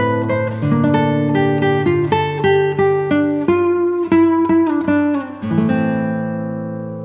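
Background music: an acoustic guitar picking a melody note by note, then a chord about five seconds in that is left to ring and slowly fade.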